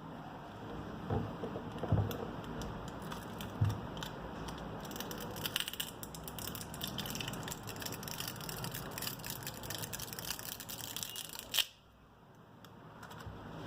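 Small clicks and taps of hand tools and plastic and metal phone parts being handled during a smartphone teardown, with a few low knocks in the first few seconds and a quick run of clicks in the middle, over a steady hiss that cuts out abruptly near the end.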